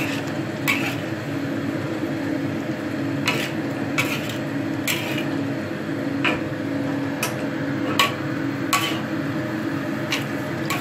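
Metal spatula scraping and clinking against a wok while stirring chunks of young jackfruit in coconut milk, a stroke about every second, over a steady hum.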